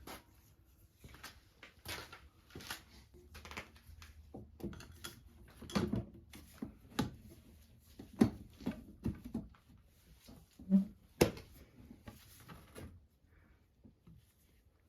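Irregular knocks and clicks of tools and parts being handled on a workbench, scattered through with no steady rhythm; the sharpest knock comes a little past the middle.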